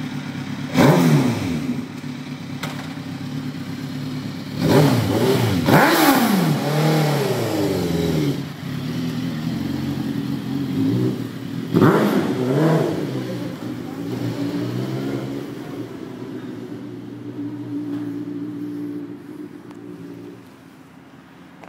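Suzuki GSX-R1000 K4 inline-four motorcycle engine breathing through a Yoshimura exhaust, revved hard several times. Each rev rises and falls back, with the loudest about 1, 5, 6 and 12 seconds in. Between the revs it runs steadier, and near the end it fades as the bike rides away.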